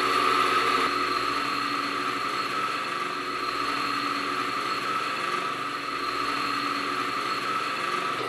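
Electric-motor-driven oil wear tester running, its bearing test ring rubbing under load in filtered engine oil, with a steady high-pitched ringing tone over the motor. It eases slightly quieter about a second in and stops at the very end.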